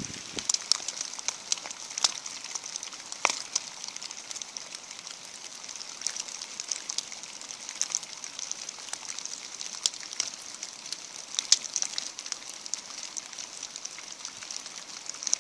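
Rain falling in wet woodland: a steady high hiss with irregular scattered ticks of drops, one sharper tick standing out near the end.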